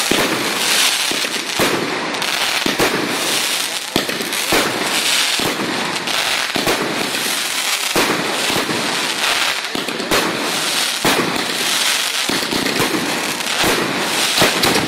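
Fireworks going off in a display: a dense, continuous crackle with sharp bangs about once a second.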